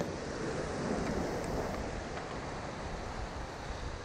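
Sea surf washing and foaming over rocks in a steady rush, with wind buffeting the microphone.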